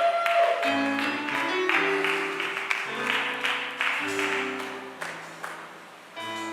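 Church keyboard music: sustained chords that change about once a second, with sharp percussive hits or claps over them. It fades somewhat near the end.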